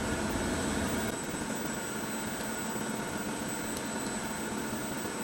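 CNC lathe spindle running steadily at 1500 rpm in reverse, a steady machine hum with a constant high whine; the low rumble eases off about a second in.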